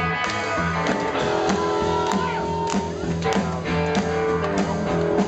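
Live rock and roll band playing an instrumental passage: electric guitar over repeating bass notes, with drums keeping a steady beat.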